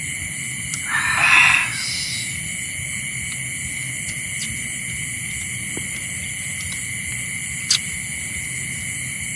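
Steady, high-pitched night chorus of insects, several unbroken tones held together. About a second in, a brief louder rush of noise lasts about a second, and a single sharp click comes near the end.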